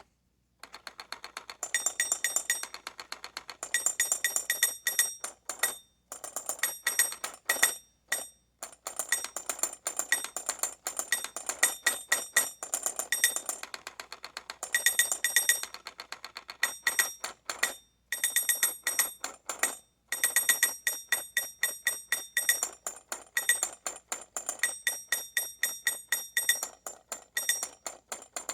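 Caveman novelty alarm clock's alarm going off: a rapid run of mechanical strikes with a bright metallic ring, in spells of a few seconds broken by brief pauses.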